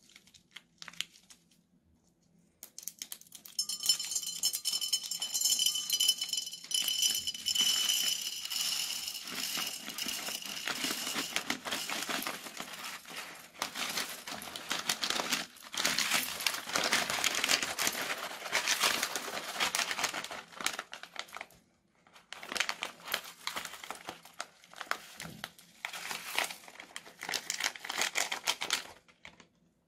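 Clear plastic piping bags crinkling as they are squeezed, while small plastic beads and cut straw pieces pour out and rattle into a ceramic bowl: a dense run of small clicks with a short break a little past two-thirds of the way through.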